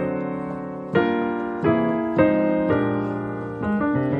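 Piano playing a gospel-style progression of rich extended chords, a new chord struck roughly every half second to a second and left to ring. The progression puts the tritone substitution of the five chord where the five would be, then drops to the three chord.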